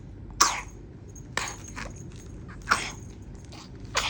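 A baby coughing, a string of about five short, sharp coughs at uneven intervals: the cough of bronchopneumonia.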